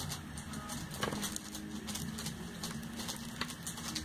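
Scattered light clicks and taps of a cosmetics package being handled, with one sharper tap about a second in.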